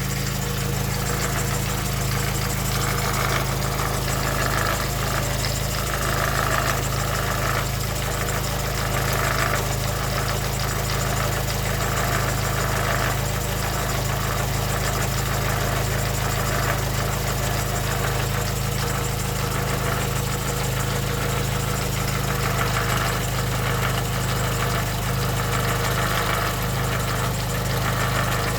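Nissan GA14DE 1.4-litre four-cylinder engine idling steadily with a rapid knock or tapping. The knock only appears once the engine has warmed to about 40–50 °C and may stay or fade after full warm-up.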